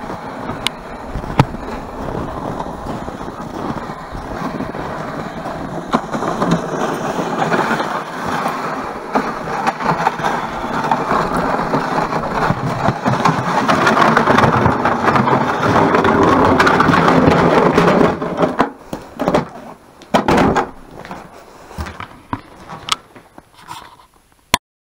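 Runners of a homemade ice-fishing sled, salvaged from a GT racer, sliding and scraping over snow as it is towed on a rope. The steady scraping grows louder, stops about 18 seconds in, and is followed by a few short scrapes and sharp knocks.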